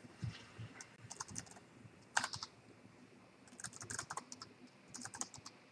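Typing on a computer keyboard: four short runs of quick keystrokes.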